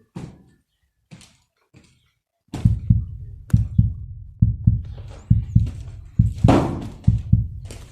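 A few faint clicks, then a couple of seconds in a steady run of dull, low thumps begins, about three a second.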